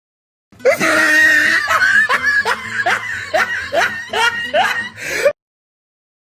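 Laughter sound effect: a snickering laugh in a run of short rising pulses, two or three a second, that starts and cuts off abruptly after about five seconds.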